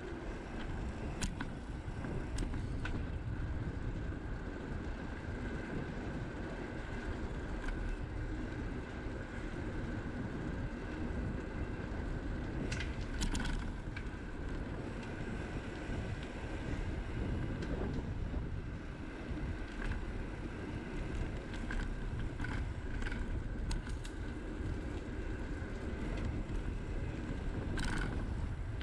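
Riding sound from a camera on a moving bicycle: steady wind noise on the microphone with tyres rolling on an asphalt path, broken by a few sharp clicks, a pair about halfway through and one near the end.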